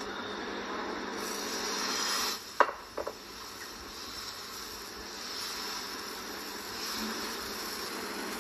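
Metal spatula scraping a dosa on a hot griddle (tawa) over the sizzle of the cooking batter. There is one sharp knock on the pan about two and a half seconds in, then two quick ones half a second later.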